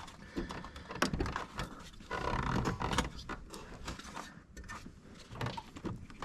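Irregular clicks, knocks and scraping of cold air intake parts being handled and fitted in a car's engine bay, with clamps being tightened, busiest about two to three seconds in.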